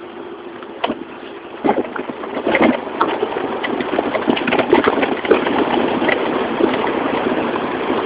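Yamaha Mio automatic scooter's engine running as it rides through a shallow, rocky stream, with sharp knocks of the wheels over loose rocks and splashing water. It gets louder about two seconds in.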